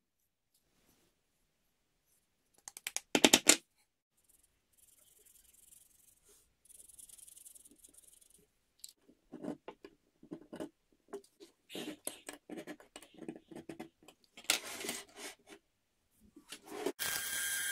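Workbench handling sounds on a steel cleaver blank: a short cluster of sharp clacks, a faint scratching as a marker marks hole positions on the steel, and scattered taps and clinks as the blank is moved about. Near the end a drill press motor starts running steadily.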